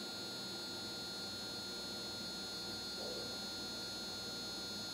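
Room tone: a steady hiss with a faint electrical hum and a few thin, constant high-pitched tones.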